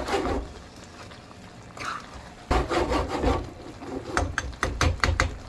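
A ladle stirring and scraping thick chicken curry in a kadhai, in three bursts, with a quick run of sharp clicks near the end.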